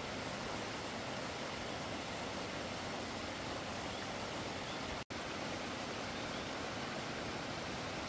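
Steady rushing of a stream, an even wash of water noise that cuts out for an instant about five seconds in.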